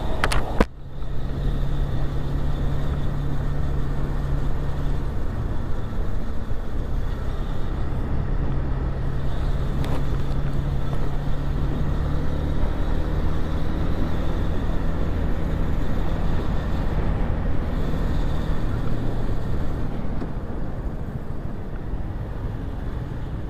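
Motorcycle engine running while riding at city speed, heard with wind and road noise on the bike-mounted camera's microphone; the engine note shifts a few times as the speed changes.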